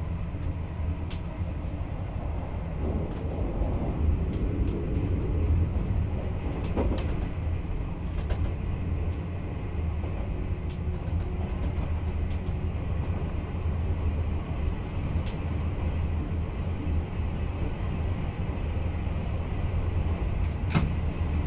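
VIRM double-deck electric train running, heard from inside the driver's cab: a steady low rumble with scattered sharp clicks.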